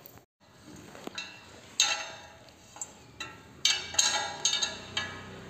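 Sharp metallic clinks and taps, irregular, about a dozen with a brief ring after each. They come from a hand tool and the 10 mm expansion bolts on the mild-steel angle as the bolts are set and tightened. The loudest clinks come about two seconds in and again around four seconds.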